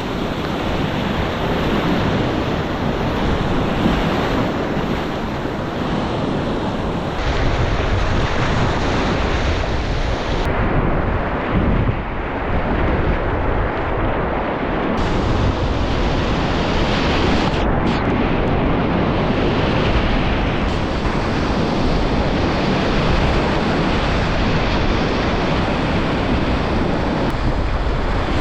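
Steady rush of a whitewater river in high flood, with wind buffeting the microphone; the hiss dulls for a few seconds about halfway through.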